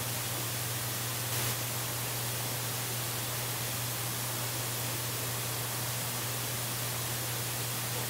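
Steady hiss with a constant low electrical hum, and a brief louder rush about a second and a half in.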